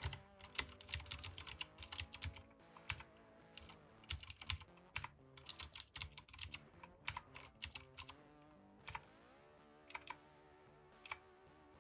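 Keychron K6 mechanical keyboard with clicky blue switches, keys pressed in irregular runs of clicks that thin out to a few single presses near the end, as the backlight colour modes are cycled.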